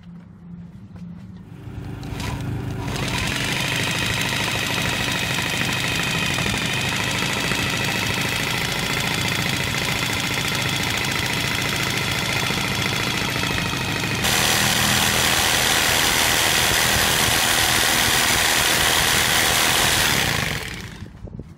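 Corded jigsaw cutting 3/4-inch PVC board in a steady whine that gets abruptly louder about two-thirds of the way through and stops shortly before the end. A portable generator runs with a low hum underneath.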